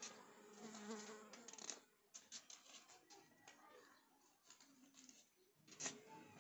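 Faint rustling and light clicks of a slip of paper being handled on a concrete floor, with one sharper click near the end.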